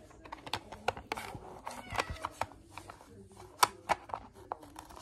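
Plastic DVD case and disc being handled: a string of sharp clicks and light rattles, loudest about two seconds in and twice between three and a half and four seconds in.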